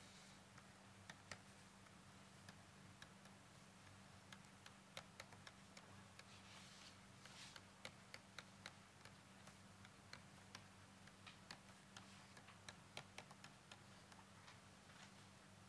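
Faint, irregular clicks and taps of a stylus on a pen tablet during handwriting, with a brief soft scratch of the pen about seven seconds in. A steady low electrical hum runs underneath.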